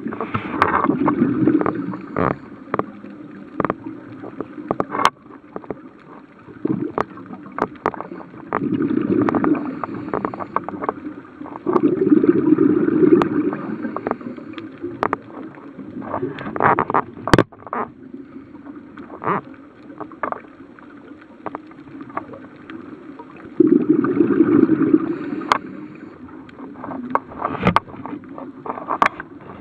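A scuba diver's regulator breathing, heard underwater through the camera housing: a bubbling exhalation rush several times, with quieter stretches in between. Scattered sharp clicks and crackles run throughout.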